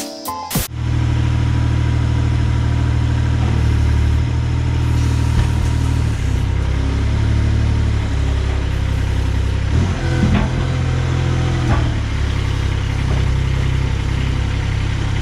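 Forklift engine running steadily close by, with a couple of short knocks about ten and twelve seconds in.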